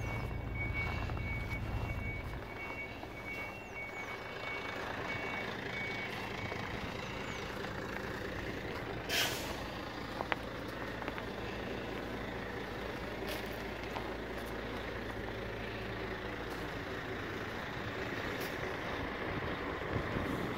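A truck's reversing alarm beeping at a steady repeated rhythm over the low running of a truck engine; the beeping stops about seven seconds in. About nine seconds in there is a brief sharp hiss of compressed air from air brakes.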